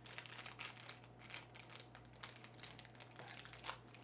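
Faint crinkling and rustling of packaging being handled, a quick string of short crackles.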